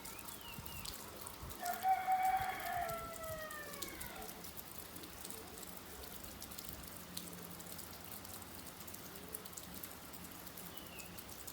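Steady rain with scattered drop ticks, and a bird giving one long call about two seconds in that falls in pitch at its end.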